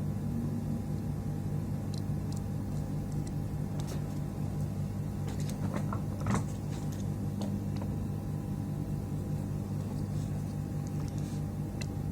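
Steady low hum of running workbench equipment, with faint light clicks of tools on the circuit board and one small tap about six seconds in.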